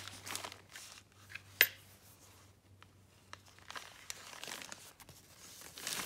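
Plastic packaging of a saw chain crinkling and rustling as it is handled, with a single sharp click about one and a half seconds in.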